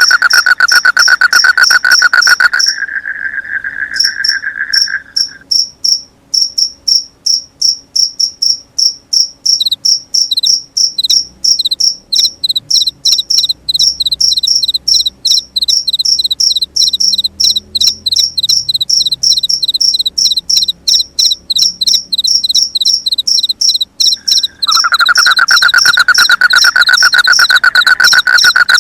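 Crickets chirping in fast, even pulses through the whole stretch. A louder, lower-pitched pulsing trill runs over them for the first five seconds or so, stops, and starts again a few seconds before the end.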